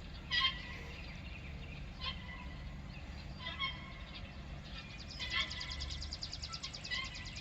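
Farm poultry calling: a few short calls, then a long, fast rattling call from about five seconds in.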